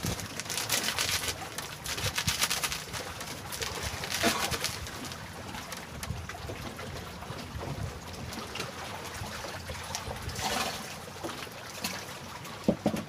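Choppy water slapping and lapping against a bamboo fishing raft in irregular surges, with a bird cooing.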